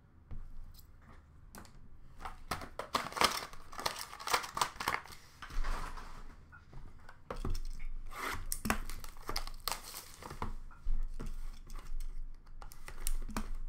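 Trading card box packaging being torn open and crumpled by hand: an irregular string of crackles, rustles and sharp snaps.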